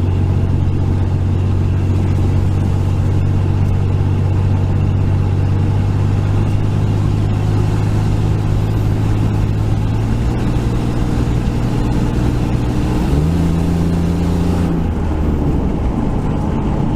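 2001 Ford F150's 4.2L V6 engine running steadily under way on a road test up a hill, with road noise. About two-thirds of the way through the engine note steps up, holds for about a second and a half, then drops back.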